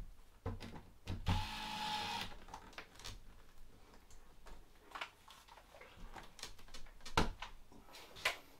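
Cordless drill running for about a second, starting just over a second in, driving a screw into a plastic screw cap in the door's window frame to pull it out. A few short clicks and knocks follow as the tool and cap are handled.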